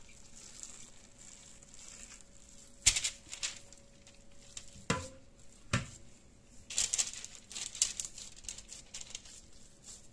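Baking paper crinkling and rustling under gloved hands as minced-meat mixture is tipped out of a bowl onto it and spread, with a few knocks and thuds about three, five and six seconds in, and the rustling busiest from about seven seconds.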